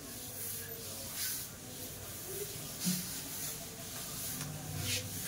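Chalkboard duster wiping across a chalkboard in a series of brushing strokes.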